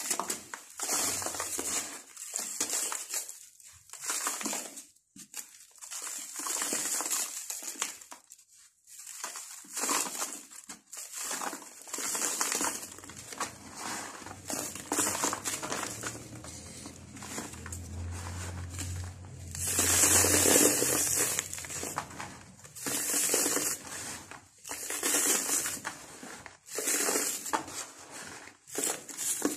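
Dry sand-cement mix being squeezed and crumbled by hand: soft, gritty crunching and crumbling in repeated bursts with short pauses, loudest about two-thirds of the way through.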